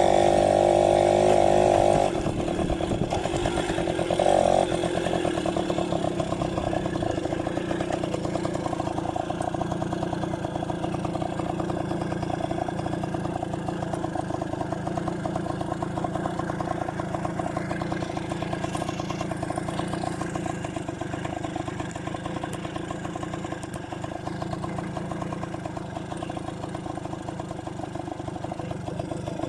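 Yamaha V50's small two-stroke single-cylinder engine running as the motorcycle is ridden. The engine is louder for the first two seconds, then drops suddenly and picks up briefly about four seconds in. After that it runs steadily and fades slowly.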